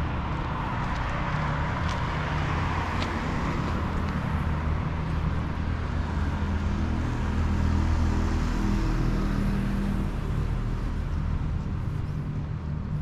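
Road traffic: motor vehicle engines running steadily on the adjacent street, a little louder about eight seconds in.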